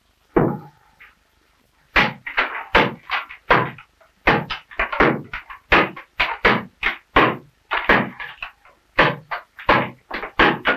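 Cooper's hatchet chopping into a green oak barrel stave: a single blow, then from about two seconds in a steady run of sharp chopping strikes, roughly two a second. The cooper is hewing away the soft sapwood and heartwood so that only the hard heartwood of the stave remains.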